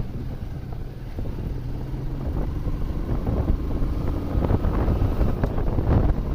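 Motorcycle running along a road with wind buffeting the microphone over the engine, growing gradually louder as it gathers speed.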